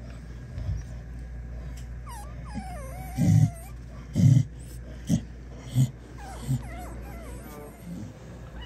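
Newborn American bully puppies squeaking and whimpering while nursing: thin, high cries that rise and fall. Mixed in are about five short low thuds, the loudest sounds, starting about three seconds in.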